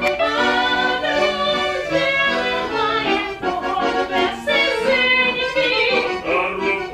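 Ukrainian folk song sung live by a woman and a man over accordion accompaniment, a lively sung melody over steady accordion chords.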